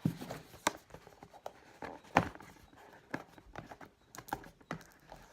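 Hands working at a hard-to-open retail package for a charging cable: scattered sharp clicks and snaps with rustling of plastic and cardboard, the loudest snap about two seconds in.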